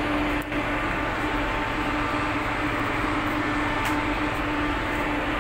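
Steady hum of a ship's machinery, a constant low drone over a wide rushing noise, with a brief click about half a second in.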